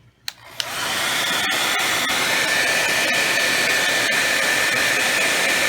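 Hair dryer switched on with a click, spinning up within about a second to a steady rush of air with a thin high whine.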